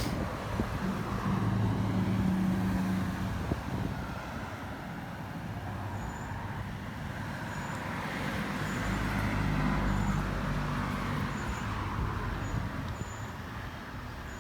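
Road traffic going by: a low engine hum swells and fades twice, first about two seconds in and again around nine to ten seconds, with faint short high chirps in between.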